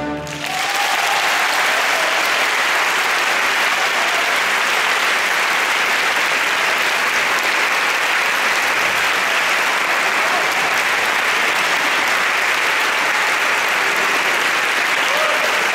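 Concert-hall audience applauding steadily, the clapping starting just as the orchestra's final chord cuts off.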